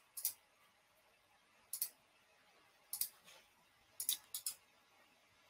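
Computer mouse clicking: quick double clicks, about five sharp pairs in the first four and a half seconds, with faint room tone between them.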